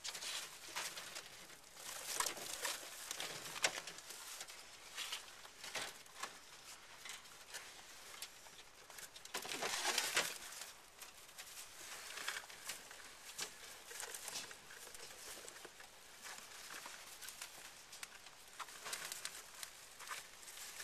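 Irregular rustling and crinkling of hay bedding, with scratchy handling noises. There is a louder, longer rustle about ten seconds in.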